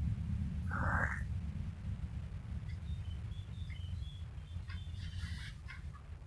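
A baby fake-snoring: a low, rough rasping rumble in the throat and nose that carries on throughout, with a short higher vocal squeak about a second in.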